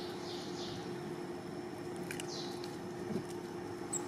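Steady outdoor background hiss with a faint hum, broken by a few short, high, falling chirps, the first soon after the start and another about two seconds in.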